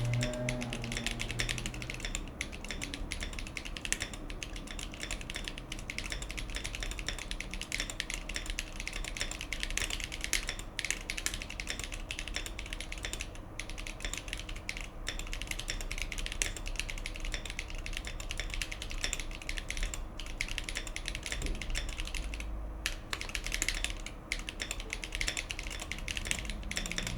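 Continuous fast typing on a custom mechanical keyboard fitted with thick 1.5 mm PBT keycaps (the PBT Raw set): a dense, steady run of key clacks with a few brief pauses.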